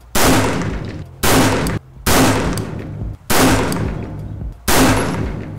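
Five shots from a PSA JAKL 5.56 semi-automatic rifle fired one at a time for a group, about a second or so apart, each trailing off in a long echo.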